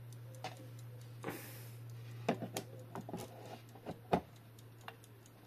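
Light metallic clicks and knocks at an irregular pace as a Junghans wall-clock movement is handled and fitted against the dial plate, over a low steady hum that stops about four seconds in.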